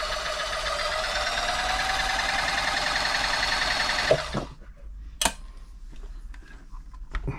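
Toyota model 2640 sewing machine running at speed, a steady motor whine with the mechanism rattling along. It picks up speed slightly, then stops abruptly about four seconds in, followed by a single sharp click. It runs smoothly, freshly cleaned and oiled, and sounds really nice.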